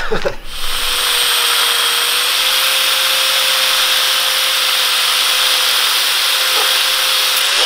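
Angle grinder cutting steel: it comes up to speed about half a second in and cuts steadily with a high hiss and a steady whine. Near the end it is let off and starts to wind down.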